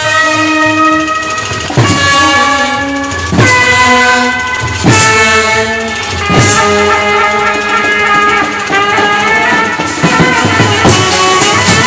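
Indian street brass band playing: brass horns hold long notes and chords over a large bass drum struck about every second and a half, with the drumming getting quicker and busier near the end.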